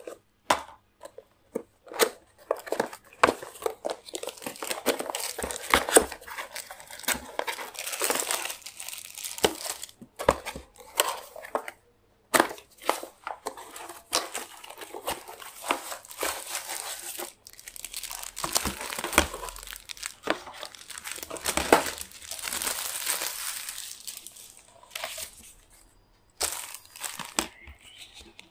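Plastic packaging crinkling and tearing and a cardboard box being handled as a keyboard is unpacked, with many sharp clicks and knocks of the parts being handled and set down on the desk. The sound cuts to silence abruptly a few times.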